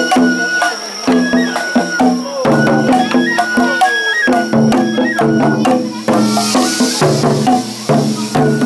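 Japanese festival music (matsuri-bayashi): a high, held flute melody stepping between notes over rapid, steady drum and percussion beats. A short hiss rises about six seconds in.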